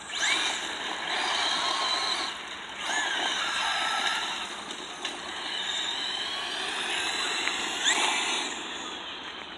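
Traxxas Slash electric RC truck running flat out, its motor whining up in pitch three times as it accelerates (near the start, about three seconds in, and near the end), over a steady rushing hiss.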